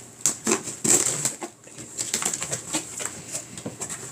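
A package being opened by hand: irregular rustling and crinkling of its packaging, with quick crackles.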